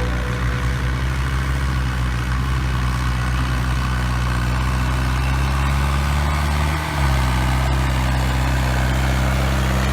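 Diesel tractor engine running steadily, with a brief dip in the engine note about seven seconds in before it picks up again.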